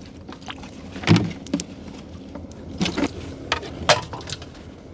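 A small boat engine running steadily at a low hum, with a handful of sharp knocks and clicks over it.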